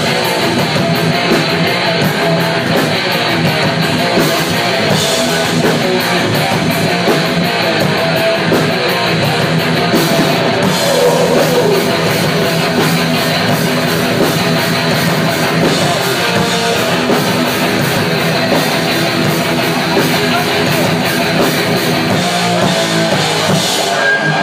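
Crossover thrash band playing live at full volume: distorted electric guitars, bass and fast drumming with cymbals, heard from among the crowd in a small club.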